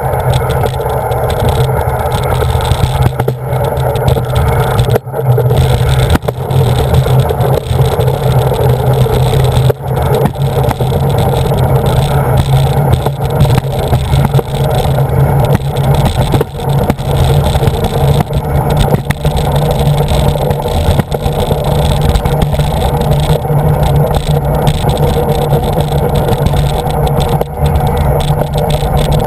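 Alpine slide sled running down its track, heard from a camera mounted on the sled: a loud, steady rumble and scrape of the sled against the trough, with a few brief knocks.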